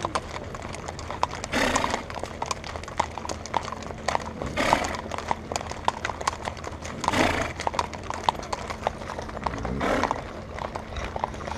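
Horses' hooves clip-clopping on an asphalt road as a group of horses walks together, with a short louder rush of noise about every two and a half seconds.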